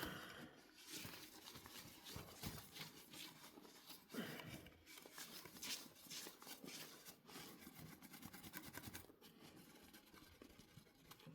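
Faint scratchy rubbing with a few light knocks: a scouring pad scrubbing the kettle's plastic surface.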